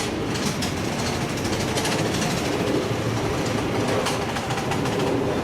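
Amusement park railroad train running, a steady rumble with repeated clicking of the wheels over the rail joints, heard from aboard.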